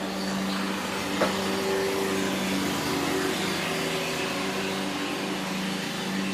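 Grizzly G0704 CNC mill running: a steady motor whine whose tones shift every second or so, over an even hiss, with one sharp click about a second in.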